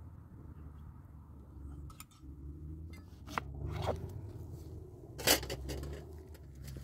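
Scattered small clicks and knocks of a lemon being handled and cut on a plastic cutting board, with one sharp knock about five seconds in.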